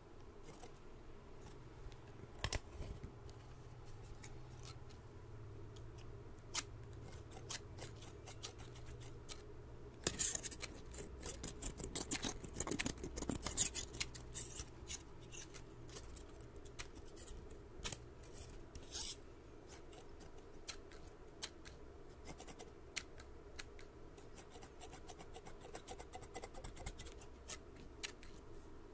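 Two pairs of scissors snipping and clicking open and shut, close-miked, their blades scraping against each other. The snips come thickest about ten seconds in, with a quick run of them later on.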